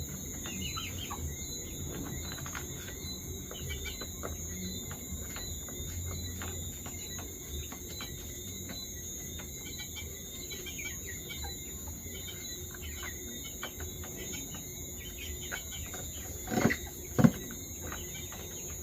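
Chickens chirping and clucking, with many small ticks throughout. Two louder knocks come about 17 seconds in.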